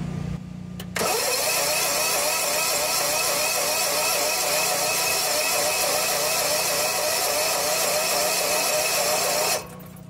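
A Generac natural-gas standby generator engine is cranked by its electric starter for about eight and a half seconds without catching, with the air intake partly covered by hand to richen the mixture. It starts about a second in and cuts off suddenly near the end. The cranking without firing comes from a loss of compression, which is the owner's diagnosis.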